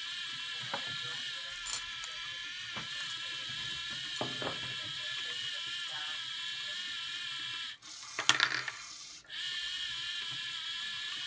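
Lego Mindstorms motors and gears driving the sorting machine's conveyor, a steady whine with a few light clicks. About eight seconds in the whine stops for a moment and a short burst of plastic clicking and rattling follows, the loudest part, then the whine resumes.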